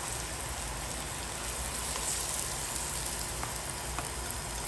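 Onion, garlic and chili flakes sizzling steadily in butter in a frying pan as diced red and green bell peppers are tipped in.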